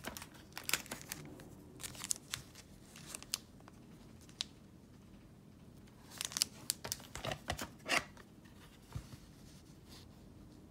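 Hard plastic graded-card slabs clicking and scraping against each other as they are picked up off a stack and handled: a scatter of short clicks and scrapes, busiest about a second in and again from about six to eight seconds in.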